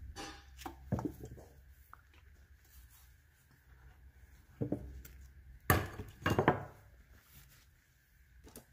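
ARP chromoly steel head studs and nuts clinking against one another and knocking on a wooden bench as they are handled and wiped in a towel. A few scattered clinks, with the loudest pair of knocks a little past the middle.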